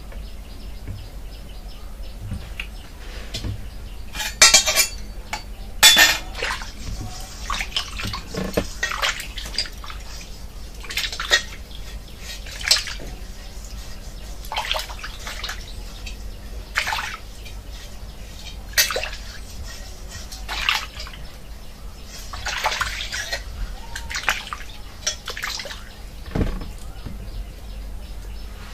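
Raw meat pieces being washed by hand in water in a metal wok: irregular splashing and sloshing every second or two, over a steady low hum.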